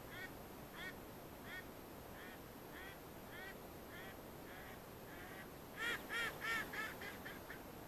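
A hen duck, the live decoy, quacking in a long, evenly spaced series of about one quack every two-thirds of a second, then a louder, quicker run of quacks near the end that trails off: a hen calling for a drake.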